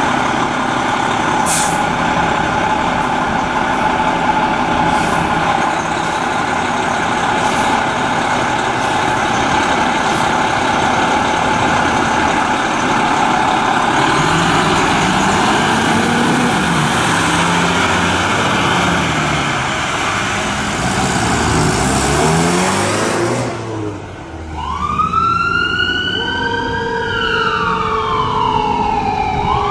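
Fire engine's siren and engine as it pulls out on a call: a loud, steady mechanical siren howl over the truck's engine, with a few short sharp clicks in the first ten seconds. About 24 seconds in the sound cuts, and an electronic siren wails up and down.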